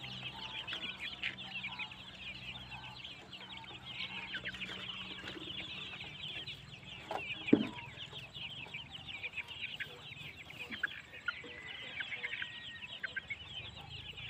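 A brood of Hmong chicks peeping steadily, a dense stream of thin high chirps, while they feed; one louder, lower cluck from the mother hen comes about halfway through.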